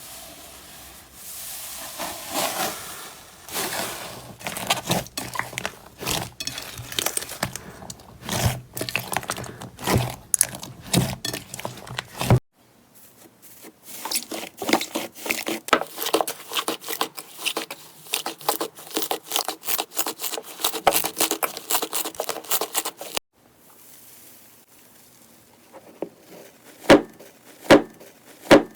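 Slime being squeezed, stretched and poked, giving dense runs of small crackles, pops and squelches. It comes in three stretches with abrupt cuts between them, about 12 and 23 seconds in.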